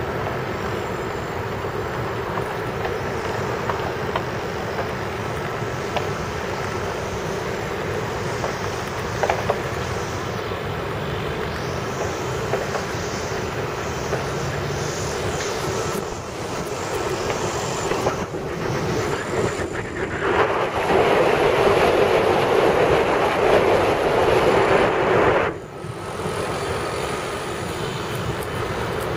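Wind noise on the microphone from the airflow of a paraglider in flight: a steady rush that swells louder for about five seconds near the end and then drops off suddenly.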